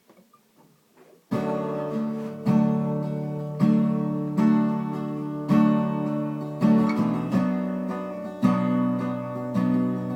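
Acoustic guitar strummed as a song intro, starting suddenly about a second in, with a chord stroke roughly once a second and the strings ringing between strokes.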